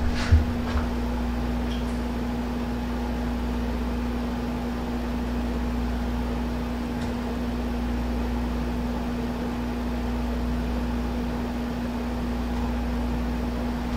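Steady motor hum: one constant low tone with fainter overtones above it and a low rumble beneath, unchanging throughout.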